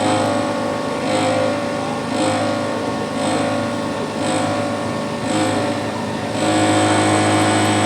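Bridgeport Interact 1 Mk 2 CNC milling machine running while it machines a part, with a steady motor whine. The sound swells about once a second, then turns louder and steady about six and a half seconds in.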